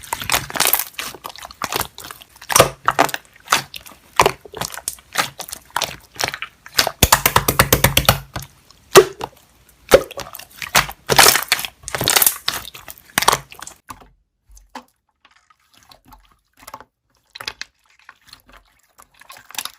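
Slime being pressed and stretched by hand, making wet crackling pops, clicks and squelches. A rapid run of pops comes about seven seconds in. After about fourteen seconds only a few faint clicks remain.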